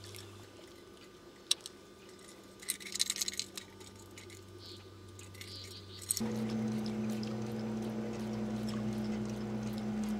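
Boat outboard motor running steadily with a low, even drone that starts abruptly about six seconds in. Before it, the water is quiet apart from a click and a short burst of clicks and rattles about three seconds in.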